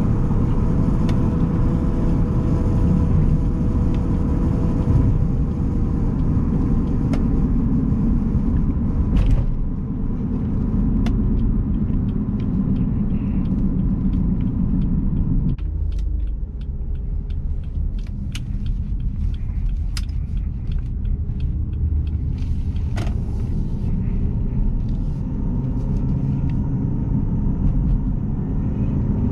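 A 2011 Jeep Grand Cherokee's V6 and road noise rumble steadily while driving. The engine note shifts about a third of the way in, a run of light clicks and ticks comes through the middle, and the engine pitch rises near the end as it accelerates.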